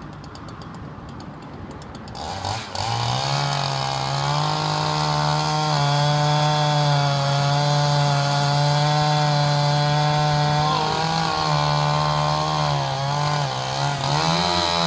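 Chainsaw revving up about two seconds in and then running steadily at high speed under load, cutting into the trunk of a large elm, its pitch wavering slightly and dipping briefly twice near the end.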